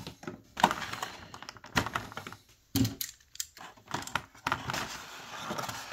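Cardboard box insert and clear plastic blister packaging handled by hand: scattered clicks and knocks with bouts of rustling.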